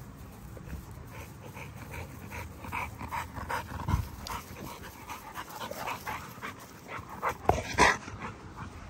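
XL American bully puppies play-fighting, making short dog noises one after another from about two seconds in, with two louder bursts near the end.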